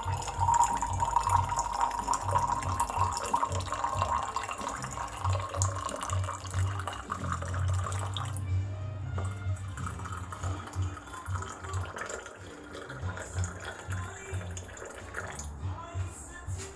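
Water pouring steadily into a container for about eight seconds, then stopping, likely to bring the honey-lemon drink to a drinkable temperature. Background music plays underneath.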